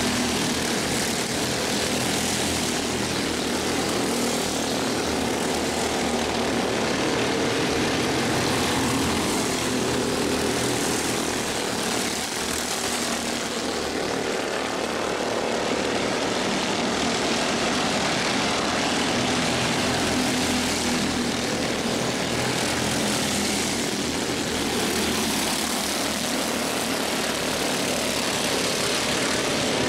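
Mini Cup race cars running at speed on an oval track, a steady engine din that swells and fades every few seconds as the cars pass.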